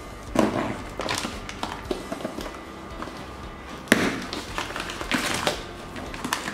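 Paper being pulled and torn off a cardboard shipping carton: an irregular rustling and ripping of the paper invoice pouch and label, with a sharp tear about four seconds in.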